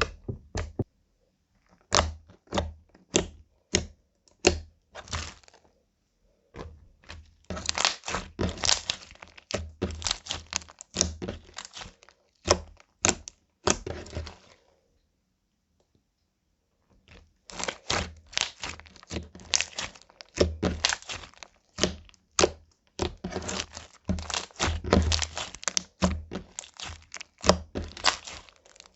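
Slime being mixed and squished: quick sticky clicks and pops in clusters, with a pause of about two seconds midway.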